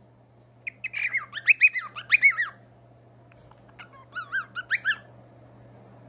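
Cockatiel chirping close to the microphone in two quick bursts of short notes that rise and fall. The second burst comes about a second after the first ends.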